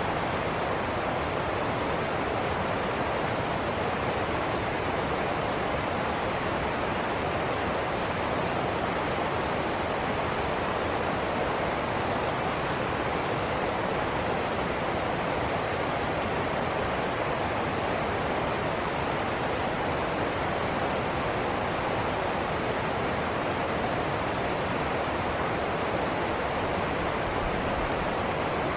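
River water rushing and splashing over a small rocky cascade into rapids, a steady, unbroken rushing noise.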